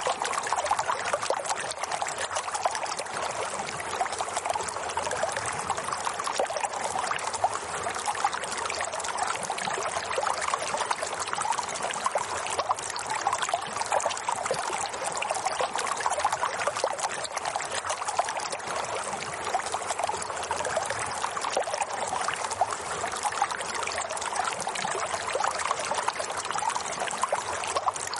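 Steady flowing water trickling and splashing, unchanging throughout.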